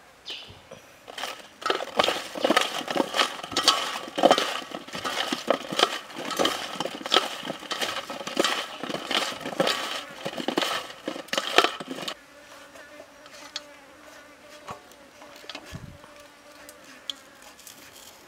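Hands tossing and rubbing seasoned vegetable pieces around a stainless steel tray: a dense run of rattling, scraping and clinks against the metal for about eleven seconds, then only quieter, scattered handling sounds.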